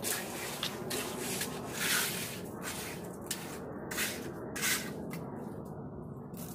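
Hand trowel scraping across wet concrete in short, irregular smoothing strokes, each a brief hiss.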